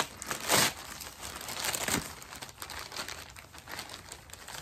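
Shipping package being opened by hand: packaging crinkling and tearing, with a loud rip about half a second in and another near two seconds in.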